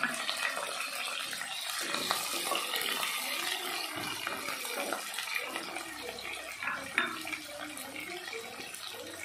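Chopped onions, green chillies and curry leaves sizzling with a steady hiss in hot oil in a kadai, being fried for upma until they redden. A flat spatula stirs them, with a couple of sharp knocks against the pan.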